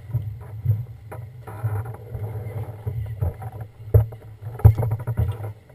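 A steady low rumble with several sharp knocks, the loudest about four seconds in and again shortly after, from an alpine slide sled and its mounted GoPro being handled as the rider works the control stick.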